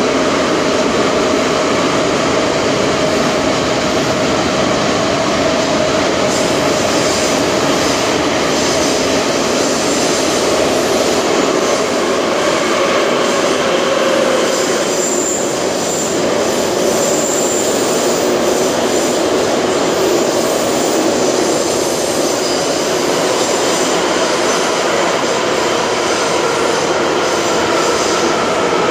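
Ezh3 (Em-508T) metro car running at speed, heard from inside the passenger saloon: a loud, steady rumble of wheels on rail and running gear, with humming tones mixed in.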